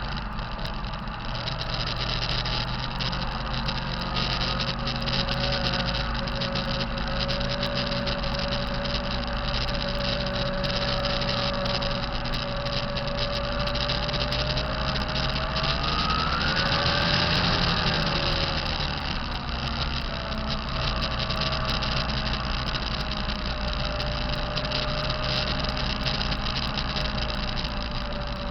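2005 Kenworth T660 truck's diesel engine idling with a steady whine over it, the sound the owner takes for a bad turbo. About two-thirds of the way through, the engine picks up briefly and the whine rises in pitch and grows louder, then drops back to idle.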